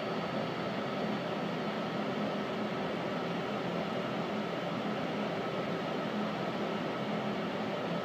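Steady hum and hiss of a subway car's interior, its ventilation and onboard equipment running evenly with a few faint constant tones.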